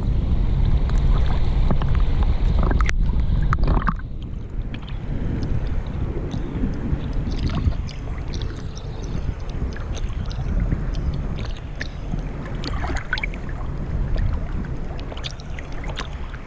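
Choppy lake water lapping and sloshing against a waterproof action camera held at the surface, with small splashes and drips throughout. A heavy low rumble under it is loudest for the first four seconds, then eases.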